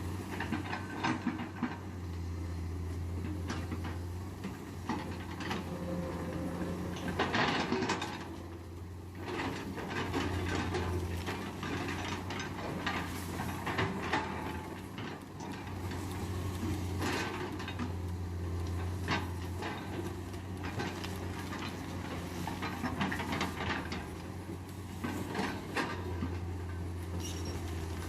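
Heavy diesel excavator engine, from a Komatsu PC200, running under load. Its low hum swells and eases every few seconds, with repeated metallic clanks and knocks.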